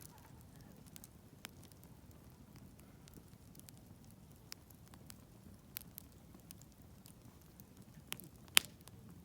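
Wood campfire crackling, with scattered sharp pops, the loudest a little before the end, over a low steady rumble.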